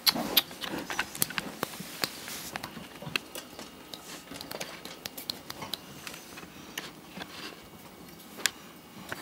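Light clicks and scratches of pet rats' claws scrabbling on wire cage bars, many in the first three seconds and then sparser, with one sharper click near the end.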